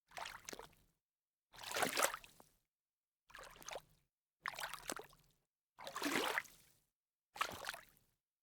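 Sneaker stepping into shallow water and splashing, six separate steps, each under a second long, with dead silence between them.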